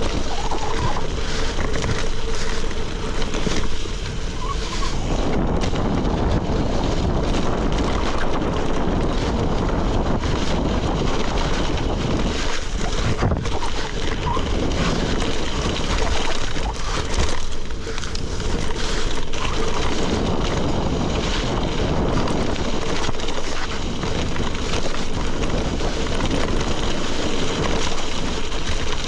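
Steady wind noise buffeting the microphone, with bicycle tyres crunching and rattling over loose gravel on a fast downhill ride.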